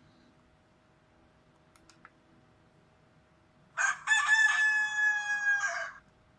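Rooster crow ringtone played from a Huawei MomoDesign MD Touch phone's speaker: a single crow about two seconds long, starting about four seconds in, preceded by a couple of faint clicks.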